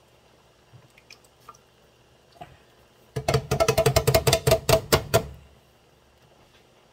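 Empty metal tomato-sauce can knocked rapidly against the skillet to shake out the last of the sauce: a fast run of ringing metal knocks for about two seconds, starting about three seconds in, after a few faint clicks.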